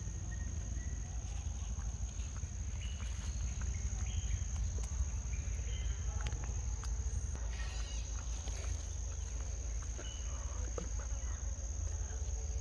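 Forest insects droning in one steady high-pitched whine, with a low rumble underneath and a few faint short chirps.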